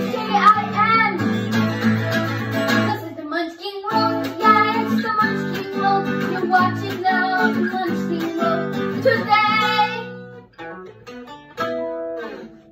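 Background music with a guitar. It breaks off briefly about three seconds in, then fades out near the end with a few last notes.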